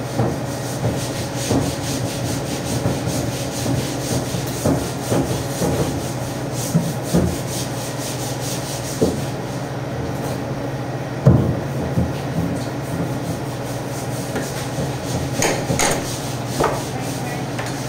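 Boning knife cutting and scraping through a pork leg on a stainless-steel table, with scattered knocks and thumps as the meat is handled and turned, the loudest about 11 seconds in. A steady low hum runs underneath.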